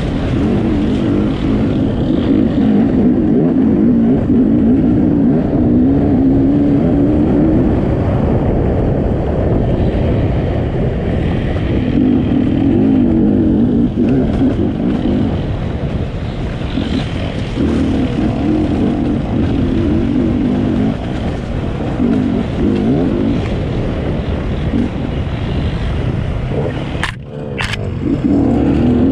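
Enduro motorcycle engine being ridden, revving up and falling back again and again. There are two sharp knocks near the end.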